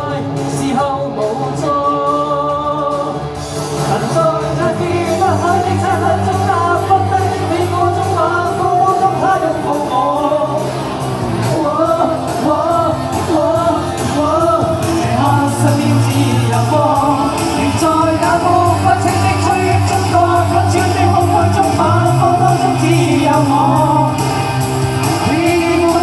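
Live pop band performing: several vocalists singing together over keyboard and electric guitar, with a steady beat.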